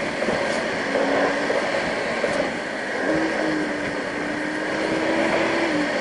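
Car driving along a winding road, heard from inside the cabin: steady road and tyre noise with a low engine hum that rises slightly in pitch about three seconds in.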